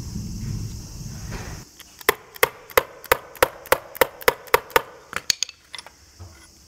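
Hammer striking a metal socket to drive a new rubber dust boot onto a Toyota Prius stabilizer link's ball joint: about ten sharp, ringing strikes at roughly three a second, then a few lighter taps.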